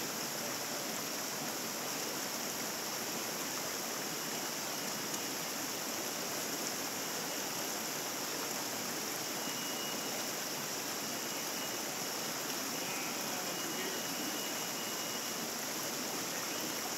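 Rocky mountain stream running steadily over stones and small cascades, a constant even rush of water.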